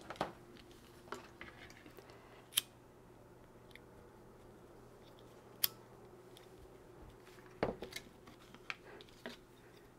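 Sparse light clicks and taps of the plastic embroidery hoop being handled on the machine table, over the faint steady hum of the idling Baby Lock Enterprise multi-needle embroidery machine.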